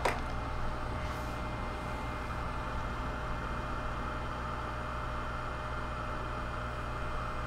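Steady low electrical hum with a faint even hiss, the background of powered-up bench electronics.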